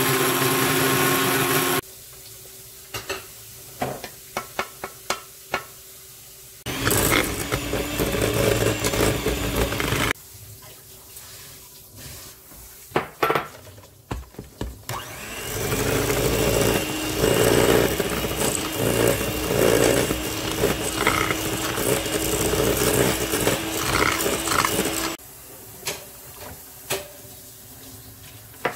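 Countertop blender grinding rolled oats, cutting off about two seconds in; then scattered clicks and knocks, a few seconds of loud whirring, and a long stretch of an electric hand mixer beating butter and sugar with a steady whine.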